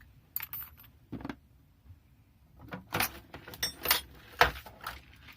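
Small metal hardware (rivets, pins, nails) clinking and rattling in a sorting box as it is handled, a few light clicks at first, then a busy run of clattering with a bright metallic ring in the second half.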